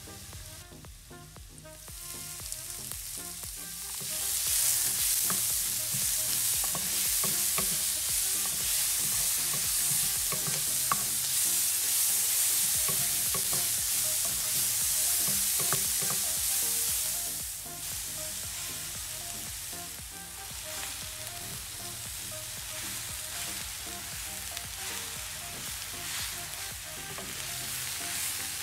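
Chopped onion and green bell pepper sizzling in olive oil in a nonstick frying pan, stirred and scraped with a wooden spatula, with light clicks of the spatula on the pan. The sizzle grows louder about four seconds in and drops back after about seventeen seconds; near the end spinach leaves are being stirred in the pan.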